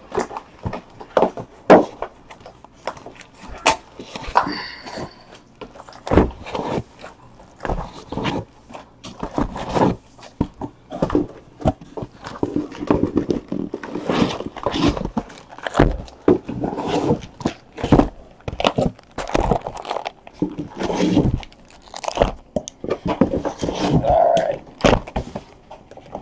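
A cardboard case being opened and handled at close range: many short knocks, scrapes and crunches of cardboard in quick, uneven succession.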